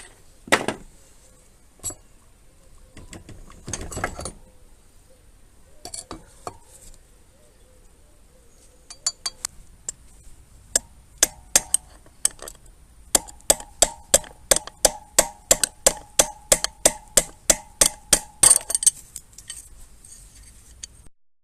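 Scattered metallic clinks of parts being handled, then a steady run of hammer blows on the metal wheel hub, about three a second with a ringing note, stopping about two seconds before the end.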